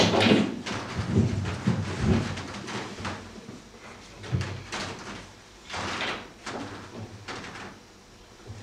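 Irregular knocks and scrapes of stage furniture and feet: a chair moved and sat on, objects set down on a small table, and footsteps on the stage platform. The loudest knocks come in the first two seconds.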